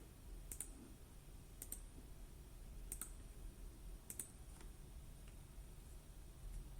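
Faint, scattered clicks of a computer keyboard, about five keystrokes spaced roughly a second apart, over a low, steady hum.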